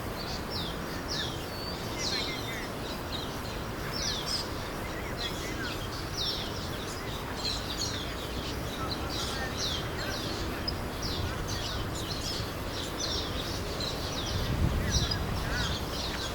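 Many birds in the treetops chirping together: a dense, overlapping chorus of short, high, quickly falling chirps. A brief low rumble comes up about three-quarters of the way through.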